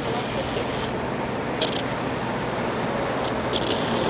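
Steady rushing noise of strong wind blowing across the microphone, with a few faint ticks.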